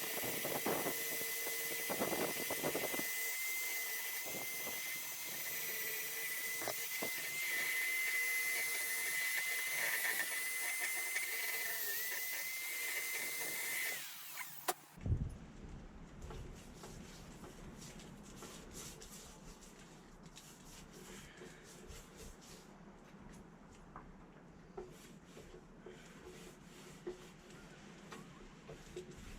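A power tool's high-speed motor runs with a steady whine for about fourteen seconds, its pitch dipping briefly a few times as it takes load, then shuts off. Quieter scattered clicks and knocks of handling follow.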